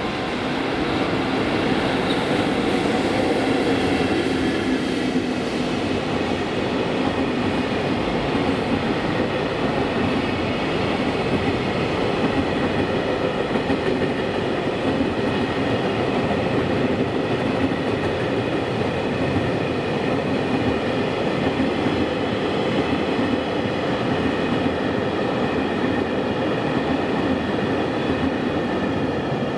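Container freight train hauled by an EF65 electric locomotive passing by: wheels running on the rails in a steady rumble, building over the first few seconds and then holding, with faint steady high tones from the wheels over it.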